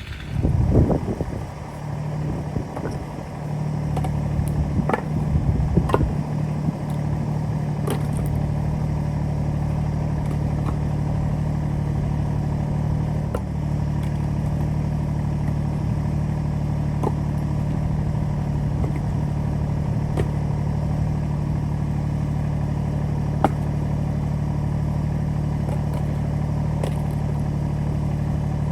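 Wood chipper's engine running at a steady speed, with scattered sharp cracks and snaps. It is louder and more uneven in the first few seconds before settling into an even drone.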